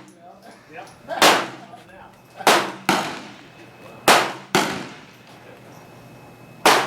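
Six gunshots fired in an irregular string, each a sharp crack with a short trailing echo. Two come in quick pairs less than half a second apart.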